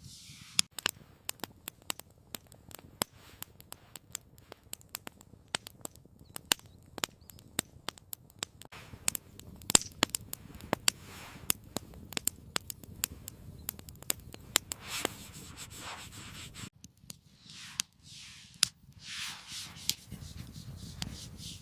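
Campfire crackling: irregular sharp pops and snaps over a low hiss, cutting off suddenly about three-quarters of the way through, then a few soft rustling swishes.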